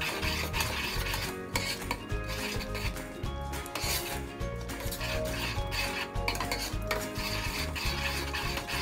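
Metal spoon stirring thick cooked mung beans in a stainless steel pot, scraping against the bottom and sides in repeated rasping strokes. The constant stirring keeps the beans from catching and crusting on the bottom of the pot.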